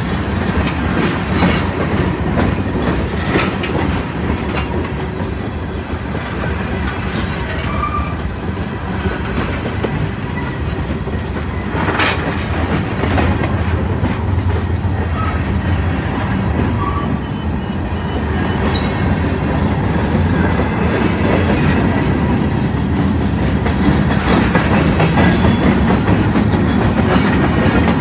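Freight train cars rolling past: a steady rumble of wheels on the rails, with repeated clicks and clanks and one loud bang about twelve seconds in.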